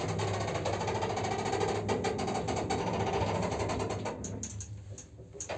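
ShchLZ passenger elevator running loudly: a steady mechanical hum with dense rapid rattling and ticking, which dies down about four seconds in, leaving a few clicks. It is typical of this lift, whose door drive is worn and whose ride is noisy and squeaky.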